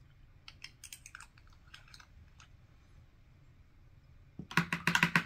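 Small ink bottle with a screw cap being handled: a few light scattered clicks, then a fast, louder run of clicks and clatter near the end.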